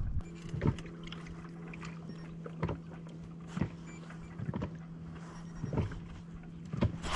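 A fishing kayak with a steady low hum, and about six short knocks and taps scattered through the next few seconds.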